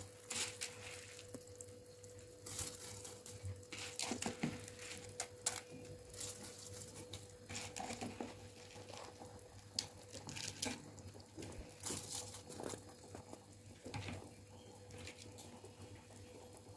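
Soaked rice dropping into a pot of boiling water, then the liquid bubbling with soft, irregular pops and patter. A faint steady hum runs underneath.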